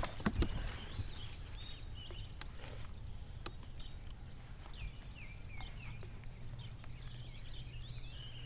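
Small birds chirping in quick, short notes, over a steady low hum, with a couple of sharp knocks in the first half second.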